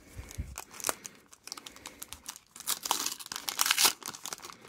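Panini trading-card pack's wrapper crinkling and being torn open by hand. The crackly rips are loudest in the second half.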